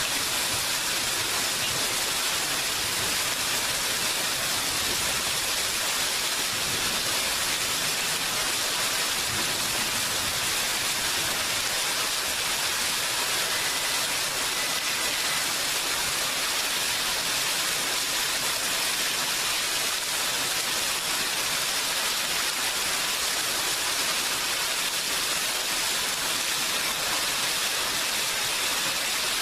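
Steady heavy rain, an even unbroken hiss with no rumbles or separate drops standing out.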